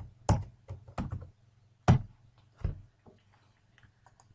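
Computer keyboard keystrokes: about seven separate key taps in the first three seconds, then a few fainter clicks near the end, over a faint low hum.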